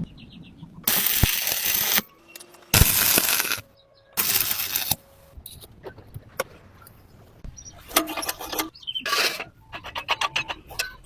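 Metalworking at a welding bench: three short hissing bursts of about a second each, then scattered metallic clicks and clinks that become rapid near the end.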